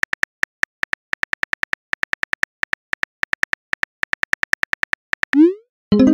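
Phone keyboard key-click sound effect, a rapid steady run of short clicks (about seven a second) as a text message is typed. Near the end a quick rising swoosh sounds as the message is sent, followed by the start of a short tonal notification chime.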